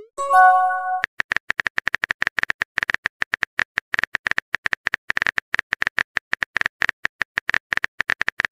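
Rapid, irregular typing clicks, several a second, from a texting-app keyboard sound effect. Near the start comes a rising swoop and a short chiming tone of a message being sent.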